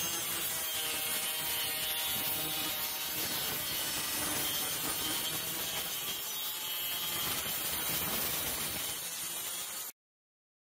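Handheld Skil marble saw, a small circular saw, running steadily as its blade cuts through an MDF sheet, then cutting off suddenly near the end.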